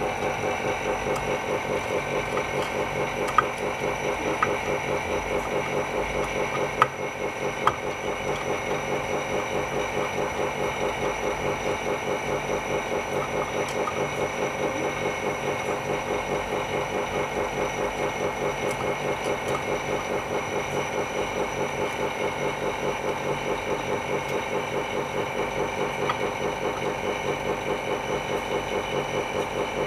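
Small vacuum pump on a polarizer-film laminating machine running steadily with an even pulsing, about three beats a second. A few sharp clicks sound in the first several seconds as parts of the machine are adjusted.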